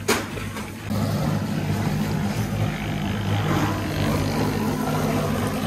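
A single thump near the start, then from about a second in a machine running at a steady speed with an even hum.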